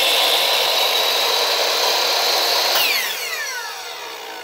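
Old Delta miter saw's motor and blade running free at full speed on a test run, with a steady high whine. About three seconds in it is switched off, and the whine falls in pitch and fades as the blade spins down.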